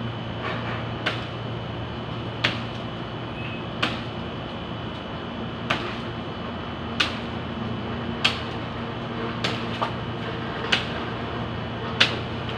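Bolo machete chopping into tree branches: about ten sharp, short blows, roughly one every second or so, the last one the loudest, over a steady low hum.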